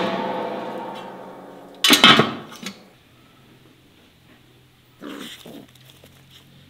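A dog barking: a loud bark about two seconds in and two shorter barks around five seconds. At the start a sudden sound rings and fades over about two seconds.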